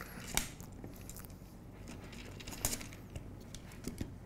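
A few light metal clicks and taps as aluminium extrusion rails, brackets and channel are handled and slid together, over a faint steady hum.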